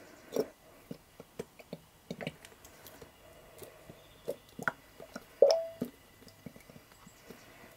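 Plastic squeeze bottle of ketchup being squeezed out into a pot: a run of short squelches and sputters. The loudest is a brief squeaky squelch about five and a half seconds in.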